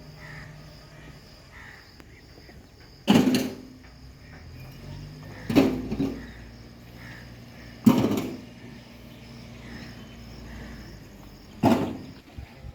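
Four loud, sharp knocks spaced a few seconds apart, each ringing briefly, over a steady low hum and faint high chirping.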